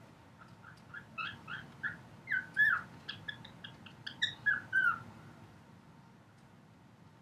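Male cockatiel singing: a run of short chirping and warbling notes, some bending down in pitch, starting about half a second in and stopping about five seconds in, loudest in the middle.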